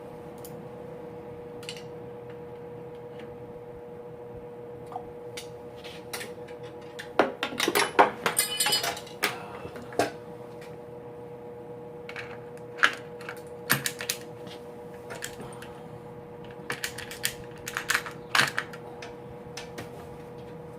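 Scattered metallic clicks and clinks of hand work in a Pontiac V8's distributor bore: a screwdriver turning the oil pump drive rod and the distributor being worked down to engage it. The clicks come in three bunches, about a third of the way in, in the middle and near the end, over a steady hum.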